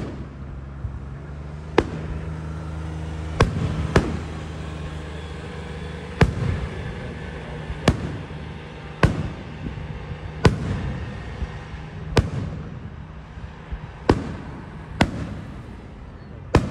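Aerial firework shells bursting overhead: about a dozen sharp booms, spaced a second or two apart, each trailing off in a short rumble.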